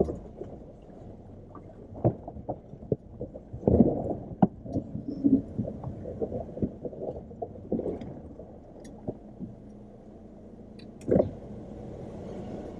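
Jeep Wrangler JL heard from inside the cabin, its engine running low and slow while irregular knocks and thumps come from the body and suspension as it crawls over rough, holed ground.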